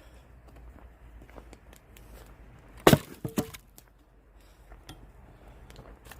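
An axe strikes a log of firewood once, hard, about three seconds in, followed within half a second by two lighter knocks.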